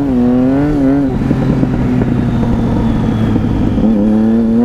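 Triumph 675 three-cylinder motorcycle engine with an aftermarket exhaust, heard from the bike while riding. The pitch drops sharply at a gearshift right at the start, climbs again and falls back after about a second, then settles into a steady note near the end.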